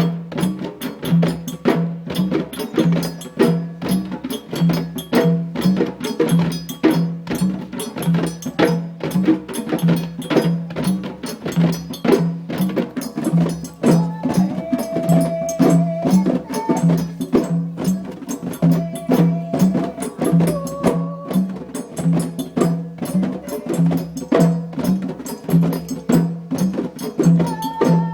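Djembe drumming: fast, dense hand strokes over a low pulse that repeats about twice a second. From about halfway, a few held pitched notes sound over the drumming.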